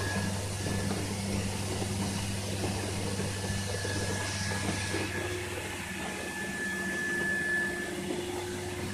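Wet-spray cellulose insulation hose and nozzle running steadily: a continuous rushing hiss of blown fibre and water spray over a steady low machine hum.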